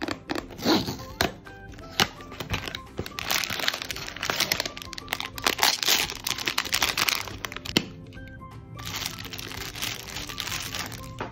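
Silver foil blind-box bag crinkling and tearing as it is ripped open and pulled apart, then a clear plastic bag around the figure rustling, over background music. A few sharp clicks and snaps of the cardboard packaging come in the first two seconds.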